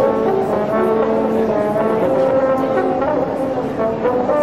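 Many horns sounding at once, long steady notes at several different pitches overlapping and coming and going, over the noise of a large crowd.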